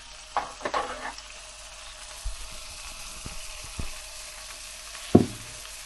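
Beef steak frying in hot oil, sizzling steadily, with a few short knocks against the pan.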